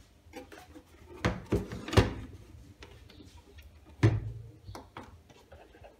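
Knocks and thumps of a My Weigh KD8000 digital kitchen scale being turned over and set down on a table, with a cluster of knocks about a second and a half in, the loudest about two seconds in, and another thump about four seconds in. Light clicks and plastic handling in between.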